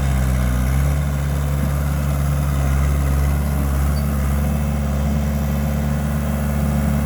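1992 Case 1840 skid steer's four-cylinder Cummins diesel engine running steadily, with a brief waver in engine speed in the first second.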